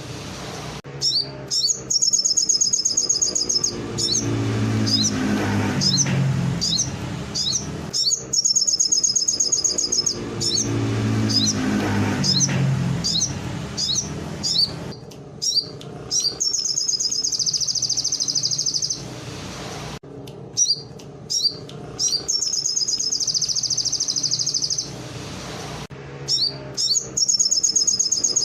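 A sogon songbird singing canary-style song: long, rapid, high trills alternating with runs of sharp downward-sweeping chirps, repeated over and over.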